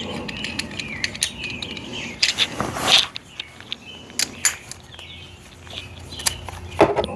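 Birds chirping in the background, with scattered sharp clicks and knocks of metal parts and hand tools being handled, and a brief rushing noise about two and a half seconds in.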